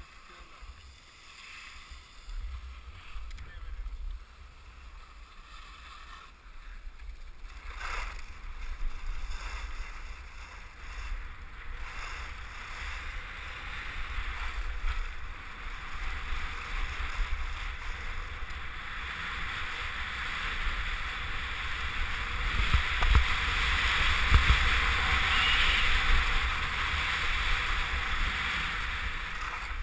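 Skis hissing and scraping over groomed snow, with wind buffeting the camera microphone, growing steadily louder as the skier picks up speed. A single knock about eight seconds in.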